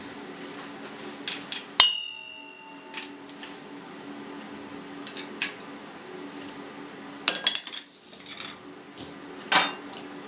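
Metal clinks of a garlic press and knife against a stainless-steel mixing bowl as pressed garlic is scraped off. One sharp strike about two seconds in leaves the bowl ringing briefly, and near the end the tools clatter down onto a saucer, over a faint steady low hum.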